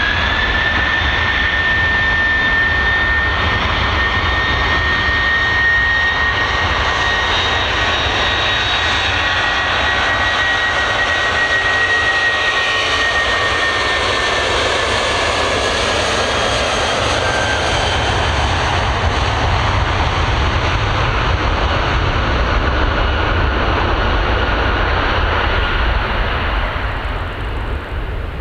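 Airbus A330-300 jet engines at take-off power through the take-off roll and lift-off. A high whine holds steady over a loud rushing noise and low rumble, and the whine fades about halfway through. The whole sound eases a little near the end as the jet climbs away.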